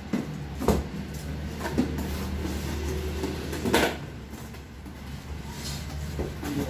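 Cardboard box being unpacked by hand: scattered knocks and scrapes of cardboard flaps and packed inner boxes, the loudest a little under four seconds in, over a steady low hum.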